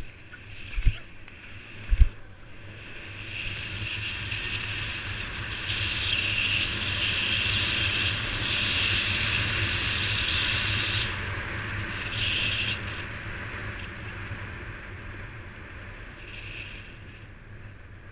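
Longboard wheels rolling fast on asphalt with wind rushing over the microphone, a steady roar and hiss that builds over the first few seconds, is loudest through the middle and eases off toward the end. A few sharp knocks come in the first two seconds.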